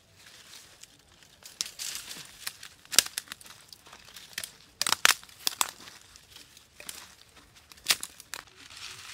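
Dry twigs and leaf litter crackling and rustling as they are broken off and gathered by hand, with three loud sharp snaps spread through it.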